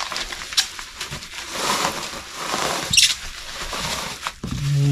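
Packing material rustling and crinkling as a wrapped glass dish is pressed snug into a shipping box, with a few sharp crackles. Near the end a low, steady hum comes in.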